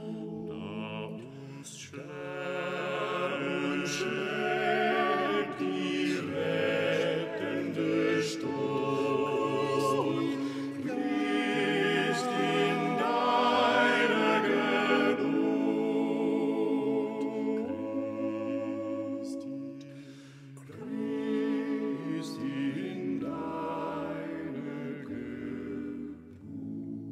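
Background vocal music: voices singing long, wavering notes in a slow choral or chant-like style, briefly dropping away about two-thirds of the way through before resuming.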